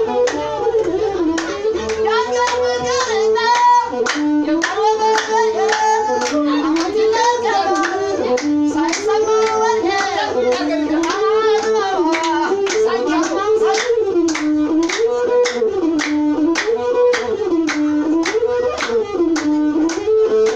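Traditional Ethiopian azmari music: a masinko, the one-string bowed fiddle, plays a short gliding phrase over and over, with steady hand clapping at about two claps a second.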